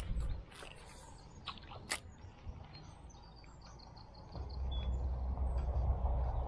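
Small birds chirping faintly, in short high calls, with a few soft clicks in the first two seconds. From about four seconds in, a low rumble rises beneath them.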